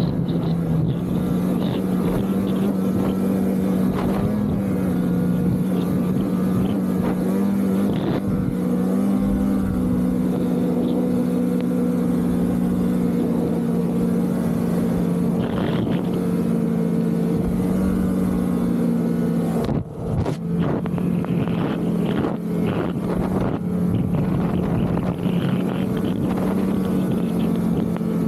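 Polaris 850 Assault snowmobile's two-stroke twin engine running at a steady pitch under way. About twenty seconds in, the engine briefly drops off, then picks back up.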